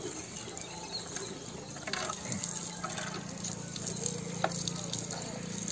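Water spraying from a garden hose onto a motorcycle's bodywork, the stream hissing and splashing. A low steady hum comes in about two seconds in.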